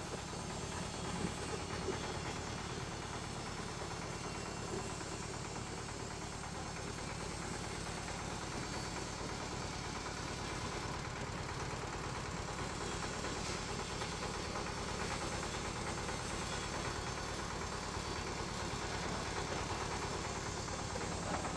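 Floating fish-feed pellet extruder machine running steadily, a constant mechanical hum with a low engine-like drone.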